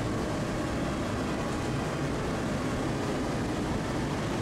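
A MUNI Metro streetcar running: a steady, even rumble with no breaks.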